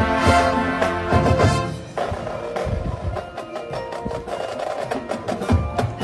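High school marching band playing its competition show. About two seconds in, the full band drops back to a quieter passage of quick clicking percussion over held tones. The full ensemble comes back in near the end.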